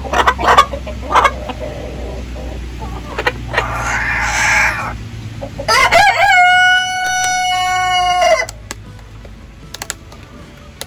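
A rooster crows once in the middle: one long, nearly level call of about two and a half seconds. Before it come a few sharp clicks as scissors snip a hen's primary flight feathers, and a short rustle.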